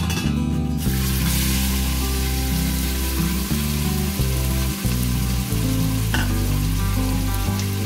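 Raw beef cubes sizzling as they drop into hot oil in a stainless steel stockpot to brown, the sizzle starting about a second in, over background music.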